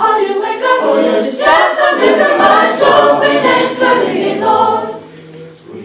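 Teenage mixed choir of male and female voices singing a gospel song a cappella, with no instruments. The singing dips briefly near the end before picking up again.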